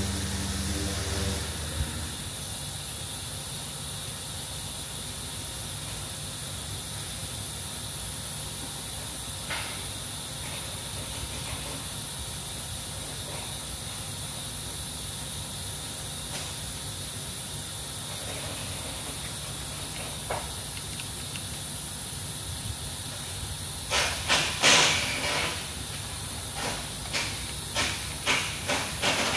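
A steady electrical hum from the CNC vertical mill cuts off about two seconds in as the machine's power is switched off, leaving a steady hiss. Near the end comes a quick run of clicks and taps as buttons on the control panel are pressed.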